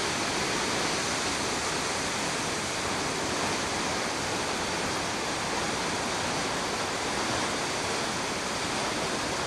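Steady, unbroken rush of water.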